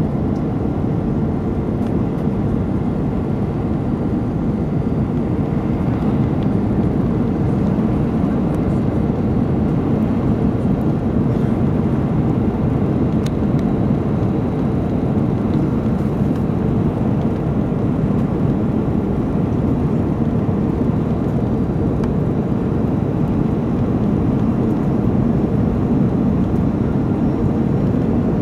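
Airbus A319 cabin noise on approach: a steady rush of airflow and jet engine hum heard from inside the cabin beside the wing-mounted engine, with a faint steady tone running through it.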